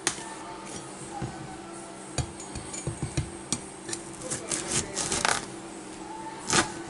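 Large kitchen knife cutting through a raw spaghetti squash: a sharp click, then scattered clicks, knocks and crunches as the blade works through the hard rind, with a louder crunch near the end.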